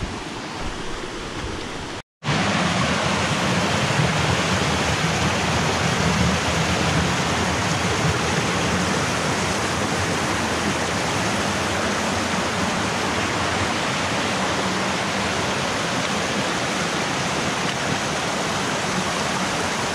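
Steady rushing water. About two seconds in it breaks off for a moment and comes back louder.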